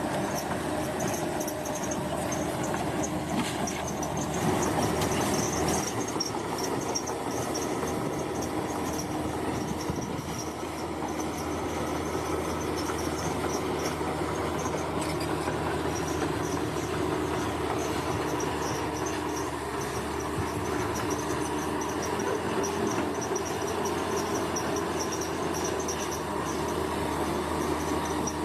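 A bulldozer's diesel engine running steadily, with insects chirring high above it.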